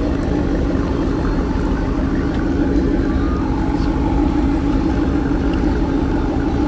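Pickup truck engine running steadily at low revs as the truck creeps across a lot.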